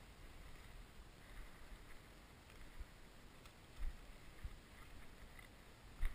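Faint rumble of wind and movement on a body-worn camera's microphone while walking through field stubble, with a few dull thumps, the loudest just before the end.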